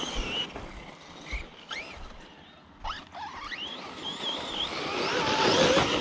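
Redcat Kaiju EXT RC monster truck running on dirt: its electric motor whines, the pitch sweeping up and down with bursts of throttle. Tyre and dirt noise grows louder near the end.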